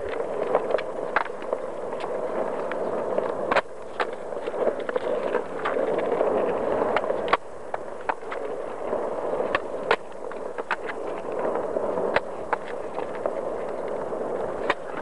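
Skateboard wheels rolling on concrete paving slabs, a steady grinding rumble broken by sharp clicks, one or two a second, as the wheels cross the joints between the slabs.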